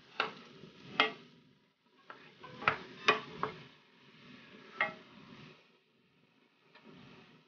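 Wooden spoon stirring ground beef and pork in a stainless steel frying pan, knocking sharply against the pan about six times, over the soft sizzle of the meat cooking in white wine.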